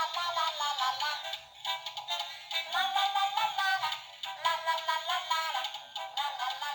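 A children's song with high, thin, electronic-sounding singing, played through the small tinny speaker of a musical sound book.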